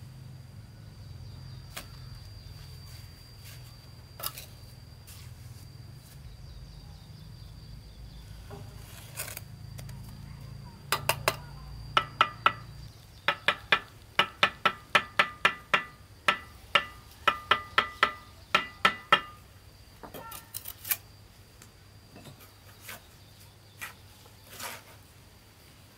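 Steel bricklaying trowel tapping bricks down into the mortar: a run of sharp, ringing taps, two or three a second, through the middle, with scattered single knocks and scrapes before and after.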